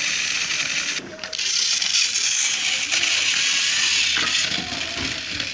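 Motorised toy train engine running on plastic track, its small electric motor and gears giving a steady high whir that dips briefly about a second in.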